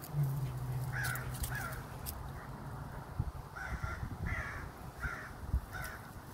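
American crow cawing: two short caws about a second in, then four more spaced through the second half. A low steady engine-like hum fades out in the first couple of seconds.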